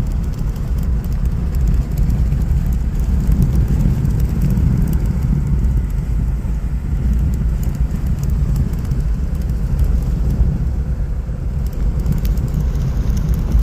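Wind buffeting the microphone: a steady low rumble with faint ticks above it.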